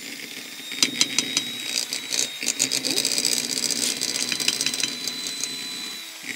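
Electric hand mixer running with a steady motor whine as its beaters cream butter and sugar, with repeated rattling clicks in the glass bowl. The motor gets louder about a second in and eases off near the end.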